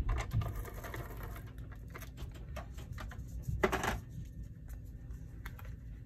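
Scotch Advanced Tape Glider (ATG adhesive gun) ratcheting as it rolls adhesive onto paper, a dense run of fast clicks in the first second or so. About four seconds in there is a short, louder rasp of paper being rubbed and pressed down, followed by a few light taps and paper handling.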